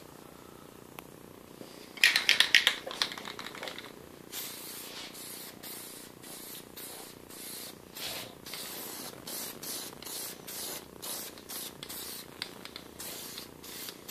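Aerosol spray paint can hissing in short repeated bursts, about two a second, after a loud rattle about two seconds in from the can being shaken.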